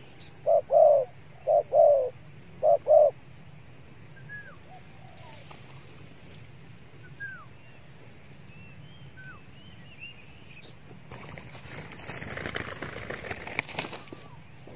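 Spotted dove cooing: a run of deep, pulsing coos in the first three seconds, then faint chirps from small birds. From about eleven seconds a crackling rustle in dry leaves builds for a few seconds and stops.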